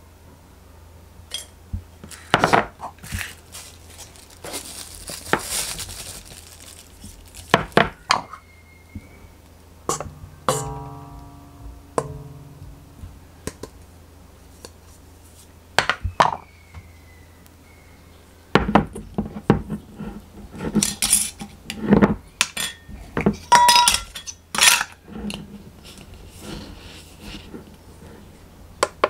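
Kitchen utensils and a glass jar clinking, tapping and scraping against a stainless steel mixing bowl as dry baking ingredients are measured in. The sounds are scattered sharp taps, a busy run of knocks and clinks in the second half, and one ringing metallic note about ten seconds in.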